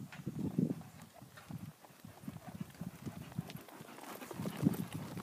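Hoofbeats of a ridden horse cantering on a sand surface: a run of dull thuds in uneven groups, loudest as it passes close near the end.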